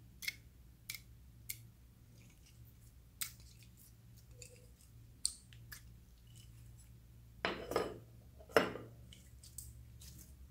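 Clear slime being peeled out of a plastic mold: scattered sharp sticky clicks and pops, then two louder, longer crackling pulls about three quarters of the way through as the slime comes free.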